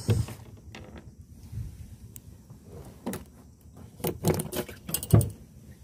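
Knocks and bumps against a small boat's hull and deck while a freshly caught fish is handled, a handful spread out, the loudest near the end.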